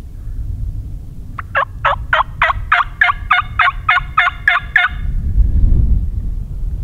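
Turkey call sounding a fast run of about fourteen yelps, roughly four a second and speeding up slightly, from about a second and a half in to about five seconds in, with a steady low rumble underneath.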